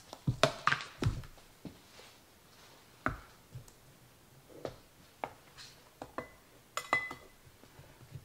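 A metal measuring cup scooping flour from a plastic bin and tipping it into a stainless steel mixing bowl: scattered light knocks and taps, with a brief ringing clink about seven seconds in.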